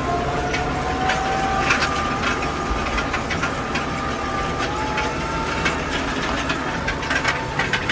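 Farm tractor running steadily while working a field, with a faint whine that slowly rises in pitch and scattered rattles and clicks from the machinery.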